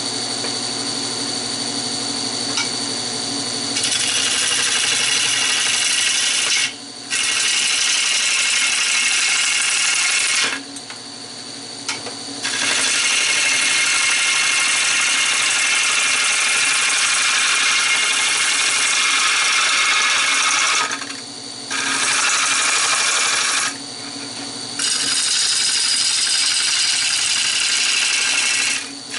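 Nova 16/24 wood lathe running with a turning tool cutting a redbud bowl blank. The cutting noise starts about four seconds in and stops briefly four times over the lathe's steady running.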